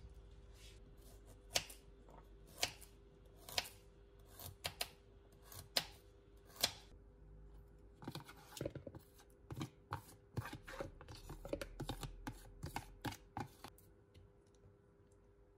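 A spoon knocking and scraping against a plastic mixing bowl as ricotta is scooped into it: a few spaced sharp clicks at first, then a quicker run of duller taps and knocks about halfway through.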